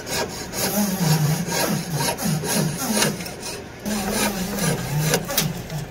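Jeweler's piercing saw cutting back and forth through the soldered joint of an 18K white-gold Tiffany T1 wire ring, held against a wooden bench pin. The strokes come at about three a second, with a short break a little after four seconds in. The cut separates the earlier solder joint to restore the gap of the T.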